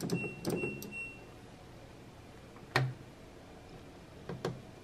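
LG front-loading washing machine's control panel beeping: three short high beeps in the first second as its buttons are pressed. Then a few sharp clicks, the loudest just under halfway through.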